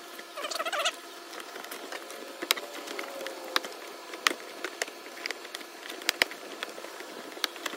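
Inner fender liner cover being pressed back into the wheel well by hand: a scatter of sharp clicks and knocks as the stiff liner is worked into place against the body.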